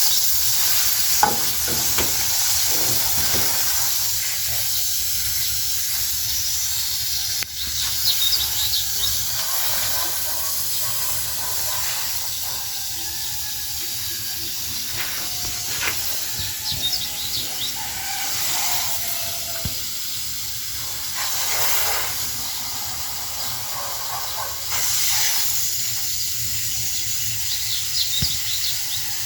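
Steady hiss of water spraying from a garden hose onto rooftop plants, with occasional bird calls over it.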